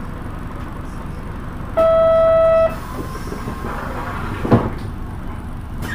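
Low, steady rumble of a Mitsubishi Fuso PA-MK27FH city bus. About two seconds in, a single steady electronic beep sounds for about a second, and a short thump comes a little later.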